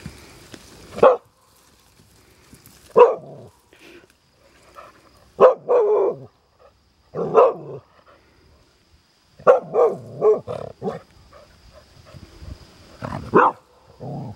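A dog barking repeatedly at cattle, single barks and quick runs of barks with short pauses between.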